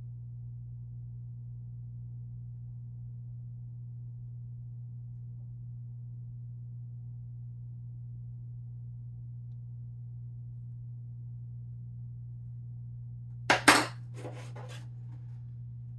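Steady low hum, then a short clatter of a few sharp clicks near the end as a pair of plastic-framed sunglasses is set down on a table.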